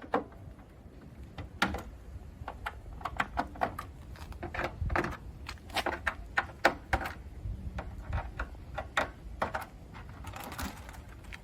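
Irregular clicks and knocks, several a second and unevenly spaced, from hands working the plastic Rhinohide Armor panel and its Armor-Lock fittings off the vehicle.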